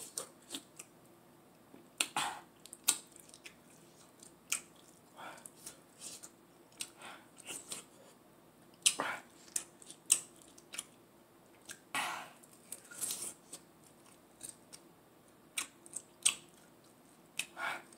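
Close-up eating of saucy chicken wings: irregular wet smacks, clicks and chewing as meat is bitten and pulled off the bone, with short quiet gaps between.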